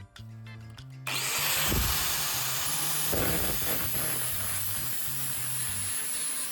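A power tool working on metal starts up about a second in and keeps running steadily, with a thin high whine over a harsh grinding noise. Background music plays underneath.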